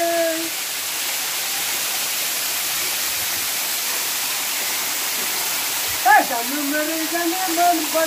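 Waterfall's steady rushing hiss as water falls and splashes onto rock. A man's voice calls out briefly right at the start and again in a drawn-out call for the last two seconds.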